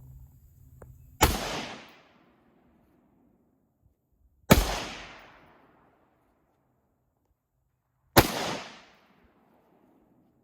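Three rifle shots fired one at a time, about three to four seconds apart, each a sharp crack with a short echoing tail.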